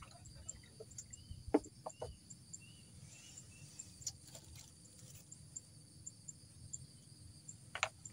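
Steady high chirring of insects with a regular faint chirp, broken by a few sharp knocks as fishing gear is handled on the wooden platform, the loudest about a second and a half in and another near the end.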